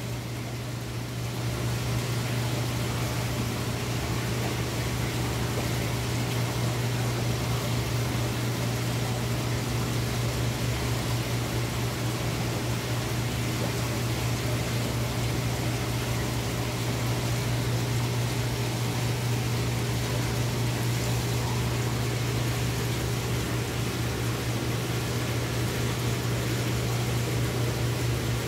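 Steady low hum with an even hiss from aquarium pumps and filtration running on a fish tank.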